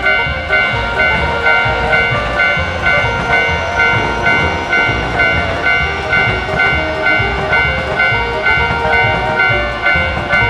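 Railroad crossing alarm ringing in a steady, repeating alternating-tone pattern, with a train's low rumble underneath.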